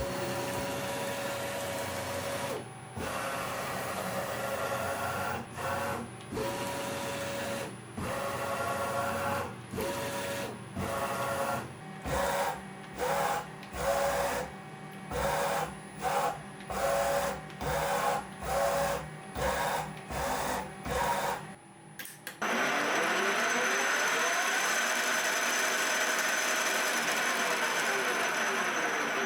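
Axis drive motors of a milling machine converted to CNC, whining through a run of short start-stop moves that come quicker and shorter toward the middle. After about 22 seconds they give way to a louder continuous whir, with a tone that slides down and then back up.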